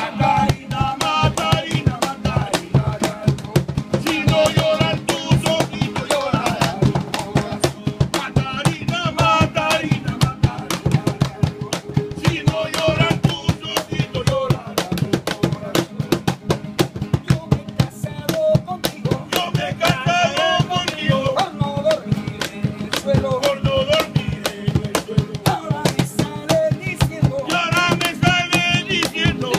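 Peruvian folk music played live: an acoustic guitar and a cajón struck by hand in fast, steady strokes, with a man singing in phrases that come and go every few seconds.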